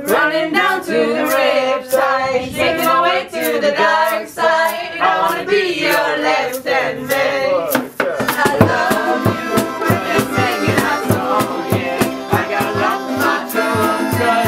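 A group singing together over a strummed acoustic guitar and ukulele in an informal jam. About halfway through, the strumming turns into a denser, steady driving beat.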